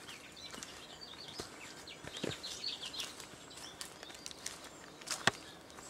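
Forest birds chirping in short, high calls, thickest in the middle, over quiet forest ambience. A few sharp clicks cut across it, the loudest about five seconds in.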